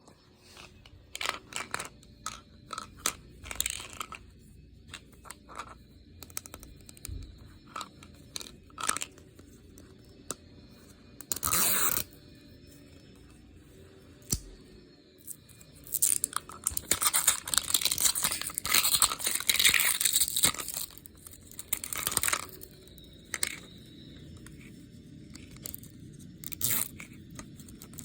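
Plastic wrapping being torn open and crinkled by hand, with scattered clicks and taps of handling. The crinkling is densest in a long stretch about two-thirds of the way through.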